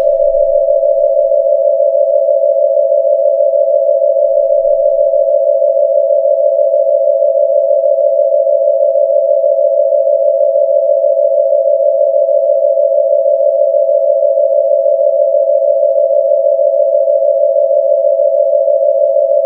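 A loud, steady electronic tone in two close pitches, held unbroken like a telephone dial tone.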